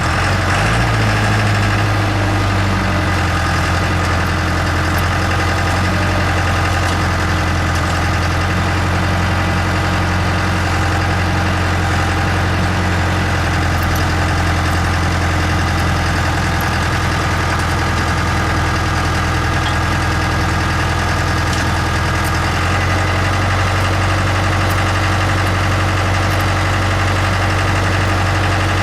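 Skid steer loader's engine running steadily with a deep hum, its note shifting slightly about three-quarters of the way through.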